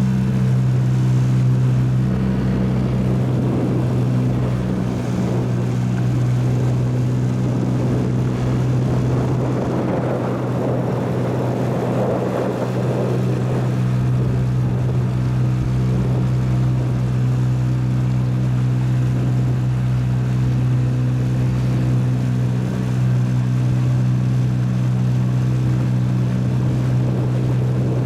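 Small boat outboard motor running steadily at an even speed, with a rushing noise rising and falling around the middle.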